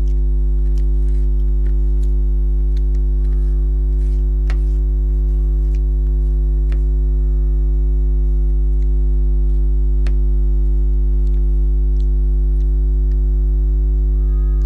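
Loud, steady electrical hum with a stack of steady overtones throughout: an audio fault in the recording. A few faint clicks are scattered over it.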